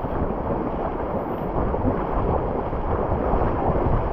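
Shallow sea surf washing and splashing around the legs of people wading through it, with wind rumbling on the microphone.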